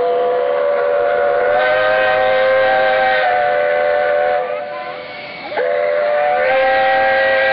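Steam whistle of LNER locomotive 4472 Flying Scotsman sounding a chord of several notes in two long blasts. The first blast breaks off about four and a half seconds in, and the second starts about a second later.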